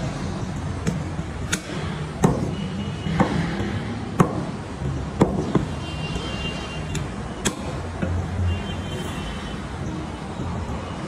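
Heavy cleaver chopping goat meat and bone on a round wooden chopping block: about nine sharp chops at an uneven pace, with a steady low hum underneath.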